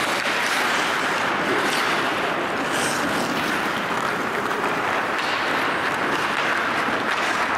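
Ice hockey rink ambience during play: a steady hiss of noise with faint scrapes and taps of skate blades and sticks on the ice.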